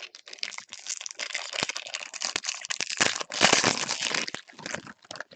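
Foil wrapper of a baseball card pack crinkling as it is torn open and handled, a dense crackle of small clicks that is loudest a little past the middle.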